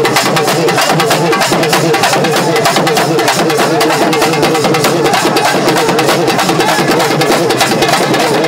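A street drum ensemble plays a fast, unbroken rhythm on rope-laced Tamil barrel drums beaten with sticks and hands.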